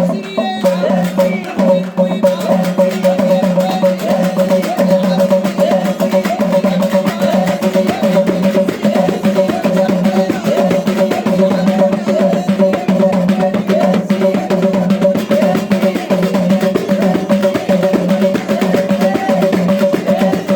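Lively music with a steady percussion beat over a held drone and a quick, wavering melodic line.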